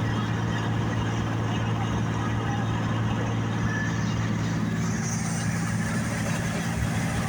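John Deere combine running steadily, a constant diesel engine drone mixed with the hum of the machinery.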